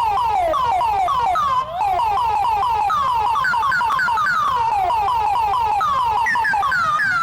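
Electronic emergency-alert alarm tone: rapid falling pitch sweeps repeating several times a second, with several overlapping at different pitches. There is a brief break about one and a half seconds in, and the sweeps shift higher near the end.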